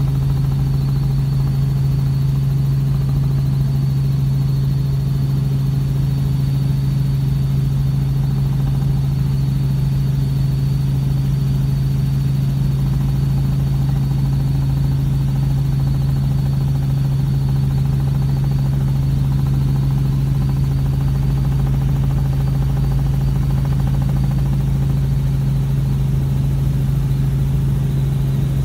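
Robinson R44 helicopter heard from inside the cabin in flight: the steady, unchanging drone of its six-cylinder Lycoming piston engine and rotor, with a faint high whine above it.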